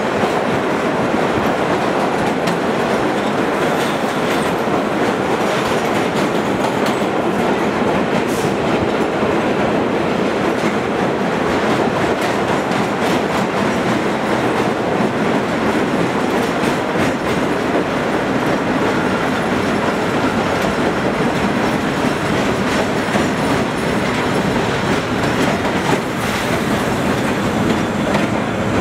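Vintage 1930s R1–R9 subway train running at speed through a tunnel: a steady loud rumble of wheels on rail, with irregular clicks and clatter over rail joints.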